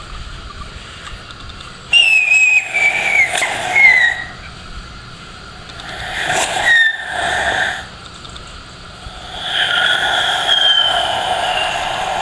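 Screaming cowbell firework (a whistling screamer fitted with a small horn) whistling shrilly in three uneven bursts with breaks between, the pitch falling in each. The whistle element is malfunctioning, 'kind of broke'.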